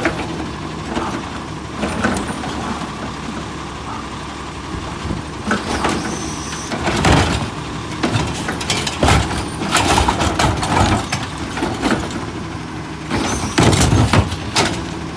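Natural-gas automated side-loader garbage truck running while its arm handles a plastic wheeled trash cart. Loud bangs and clatter come about halfway through and again near the end, where the cart drops and tips over onto the street.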